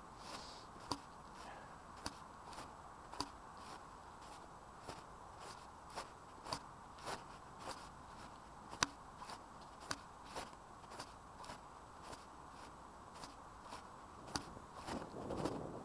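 Footsteps of someone walking outdoors, heard as short sharp ticks about twice a second, over a faint steady background hum. A louder rustle comes near the end.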